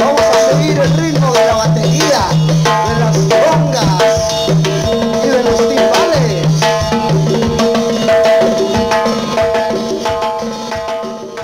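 A live dance band playing, with busy hand percussion from congas and timbales over a repeating bass line, electric guitar and keyboard. The music gets quieter near the end.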